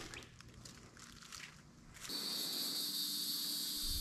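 Footsteps on dry leaf litter, a few faint scuffs. About two seconds in, a steady high-pitched buzzing hiss sets in suddenly and holds.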